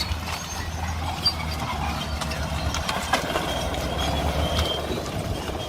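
Crawler bulldozer's diesel engine running steadily under load, with scattered sharp metallic clanks, the loudest about a second in and again about three seconds in.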